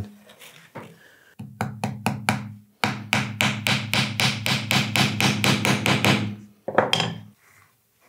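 Small hammer tapping brass upholstery nails through leather into the wooden board of a bellows. A few separate taps come first, then a fast even run of light taps, about six a second, for some three seconds, then one or two more near the end.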